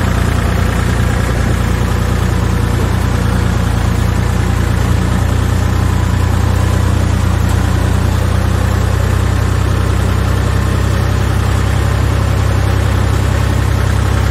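Farm tractor engine running at a steady low speed, a constant low drone while the tractor is driven slowly along the track.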